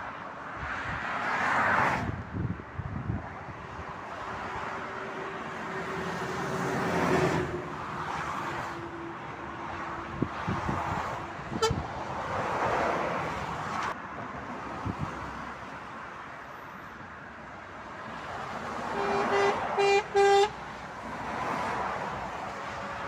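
Motorway traffic passing below: cars, vans and lorries go by one after another, each swelling and fading with tyre and engine noise. Near the end a vehicle horn gives three short toots.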